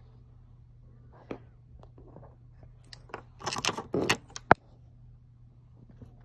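Handling noise: a few light clicks, a brief rustling scrape, then one sharp click, over a steady low hum.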